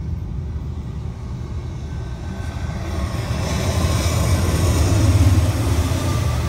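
Diesel freight locomotives passing close by: the engine rumble of a new BNSF Tier 4 locomotive builds and is loudest about five seconds in as it and the following Norfolk Southern SD60E go past, with wheel and rail noise over it.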